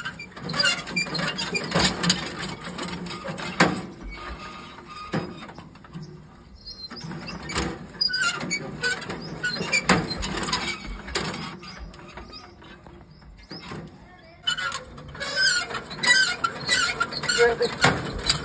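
Sartaj tractor engine being turned over by hand with its starting handle, in three bouts of cranking of about four seconds each with short pauses between them. The crank and engine give a mechanical clatter, and the engine does not catch.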